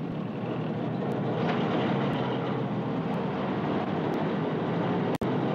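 A motor vehicle's engine running steadily, with a brief dropout near the end.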